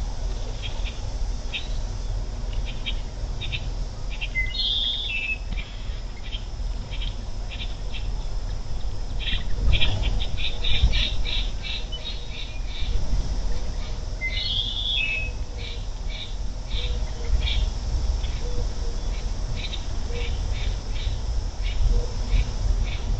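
Birds calling: a short high note repeats about once or twice a second throughout, and two louder, harsher bird calls come about ten seconds apart, over a steady low rumble.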